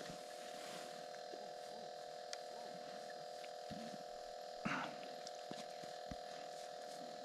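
Quiet scene: a faint steady electrical hum with a few soft clicks from handling the rod and reel, and one short breathy puff of noise near the middle.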